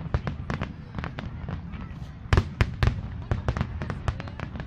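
Aerial fireworks bursting: an irregular string of bangs and crackles from exploding shells, heaviest about halfway through, over a low steady rumble.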